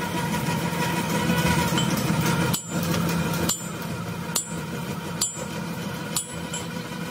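Steady hum of metalworking machinery with a held tone, broken by sharp metallic knocks about once a second from a third of the way in.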